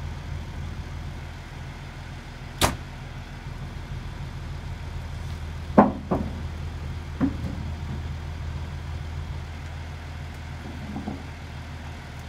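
Heavy machinery engine idling with a steady low hum, broken by a few sharp knocks: a loud one about two and a half seconds in, a close pair around six seconds, another just after, and a faint one near the end, as a worker climbs onto the loaded feller buncher and trailer.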